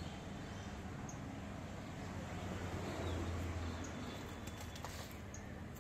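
Outdoor background ambience: a steady low hum and hiss, swelling a little midway, with a few faint, short bird chirps.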